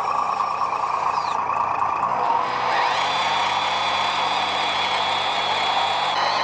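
RC scale truck's electric motor and gearbox whining steadily as it drives, the pitch wavering with the throttle.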